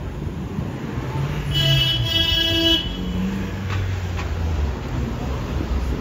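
A vehicle horn sounds once, a single steady tone held for just over a second, over the low running of passing road traffic.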